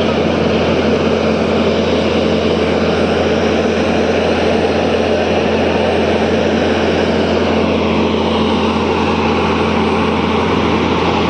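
Steady, unbroken mechanical drone of a running motor with a constant low hum.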